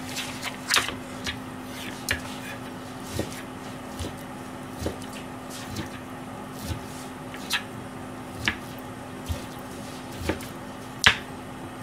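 Kitchen knife cutting raw chicken on a plastic cutting board: irregular sharp knocks of the blade meeting the board, roughly once a second, the loudest near the end, over a steady low hum.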